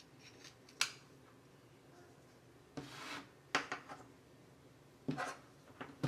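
Handling noise of cables and connectors being worked on a USB-C hub: a sharp click about a second in, a brief rubbing scrape around the middle, then a few more small clicks near the end.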